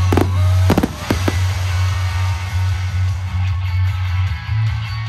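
Loud music with a heavy bass line and strummed electric guitar, with several sharp firework bangs and crackles in the first second and a half.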